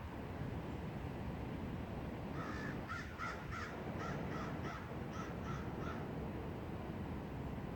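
Steady wind blowing through trees, with a bird calling in a quick run of about a dozen short calls from about two and a half to six seconds in.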